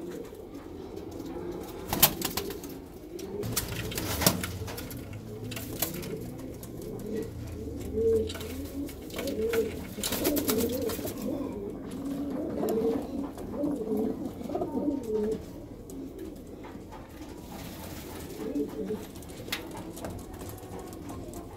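Several Madrasi pigeons cooing in their loft, a continuous wavering murmur of coos. A few sharp knocks or clicks come about two and four seconds in.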